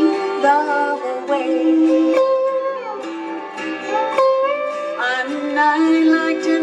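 An acoustic bluegrass band playing: guitar, mandolin, bass, dobro and fiddle, with plucked notes and sliding melody lines.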